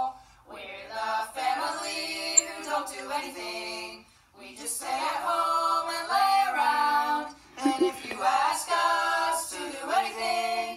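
A family of women's and children's voices singing a song together, played back from a video on a screen. The singing breaks off briefly about four seconds in and again near the end.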